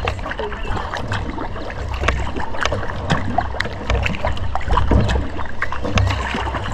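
Kayak paddle strokes dipping and splashing, with scattered drips and small knocks, over a low rumble of wind on the microphone.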